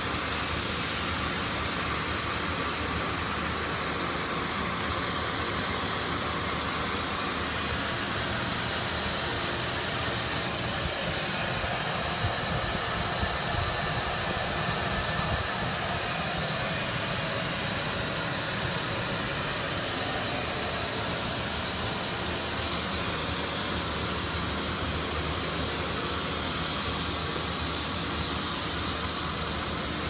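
Steady, unbroken hiss of water escaping from a broken tank water heater, running at the same level throughout.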